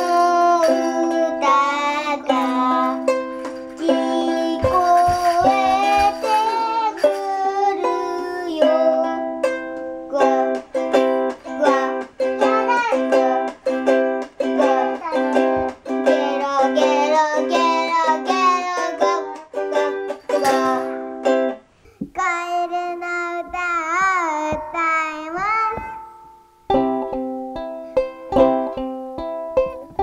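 A young child singing a nursery song through a toy microphone with built-in analog spring reverb, accompanied by a strummed K.Yairi ukulele. The music breaks off briefly twice in the last third.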